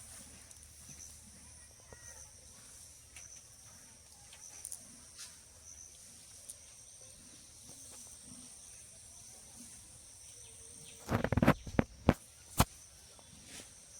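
Outdoor insects chirring steadily in a high-pitched, pulsing trill. About eleven seconds in, a short burst of loud knocks and rustling, then two sharp knocks, is the loudest thing heard.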